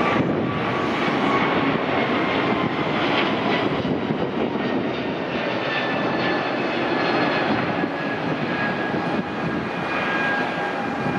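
Airbus A220-300's two Pratt & Whitney PW1500G geared turbofans at takeoff thrust during the climb-out: loud, steady jet engine noise with high whining tones that slowly drop in pitch.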